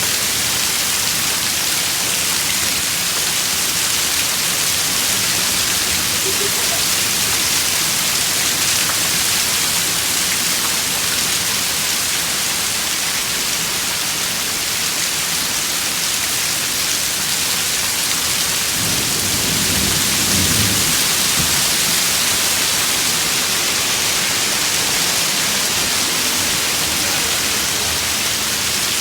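Steady, heavy downpour in a severe thunderstorm, a dense hiss of rain hammering down, with a low rumble of thunder about nineteen seconds in.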